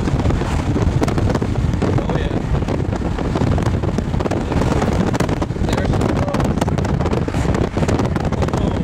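Wind rushing over a moving car and buffeting the microphone, over steady tyre and road noise, heaviest in the lows.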